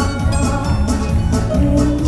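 Dance music with a steady beat and a sustained bass line.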